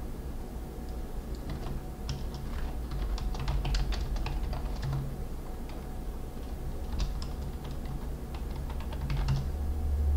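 Computer keyboard being typed on in two bursts of keystrokes, the first starting about two seconds in and the second about seven seconds in, over a low steady hum.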